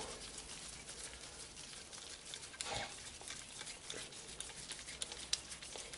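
Faint light clicks and small metal taps of an Iwata LPH 400 spray gun being handled and screwed back together.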